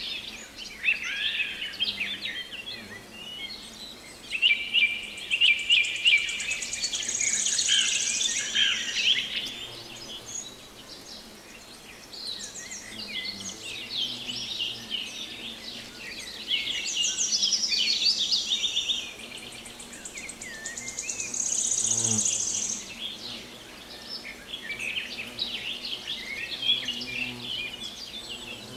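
Dawn-chorus-like birdsong: several birds singing and calling at once, a busy mix of chirps, warbles and trills, with a high, fast trill coming back every several seconds.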